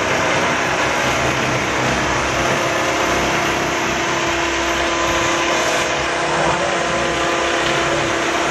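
Steady loud rushing noise, even from low to high pitch, with a faint steady hum running through it.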